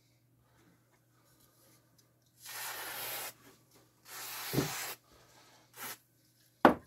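A small pine strip rubbed back and forth on a glued spot of an MDF disc: two scraping rubs of under a second each, then a shorter one. Near the end, a sharp wooden knock with a brief rattle.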